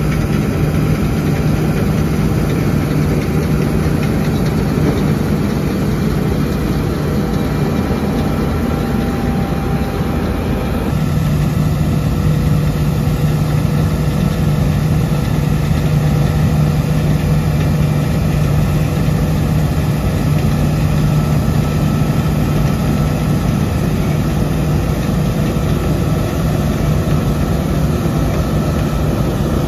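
Diesel engine of heavy harvest machinery running steadily with a constant deep hum; its tone shifts slightly about eleven seconds in.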